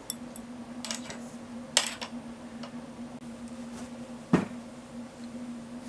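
Light clicks and clinks of small hand tools on a workbench, with one louder knock about four seconds in, over a faint steady hum.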